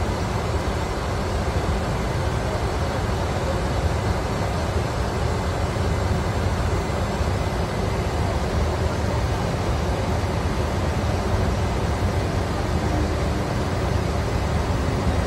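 Steady flight-deck noise of a Gulfstream G550 business jet in flight on approach: an even rushing of airflow and aircraft systems, heaviest in the low end, with a faint low hum coming in near the end.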